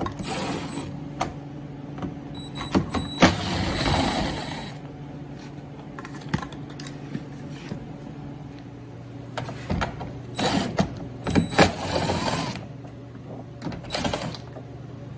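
Cordless 1/4-inch impact driver running in several short bursts, backing out 10 mm bolts, with clicks in between and a steady low hum underneath.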